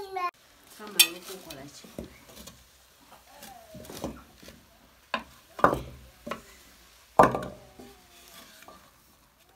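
Wooden spoon stirring pumpkin leaves in an aluminium cooking pot, with several sharp knocks of the spoon against the pot and a faint sizzle of the leaves cooking.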